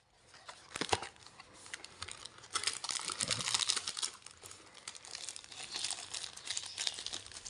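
Plastic and paper packaging crinkling as the accessory bags and white wrapping are handled. The crackles come irregularly, densest about three seconds in, with a sharp click about a second in.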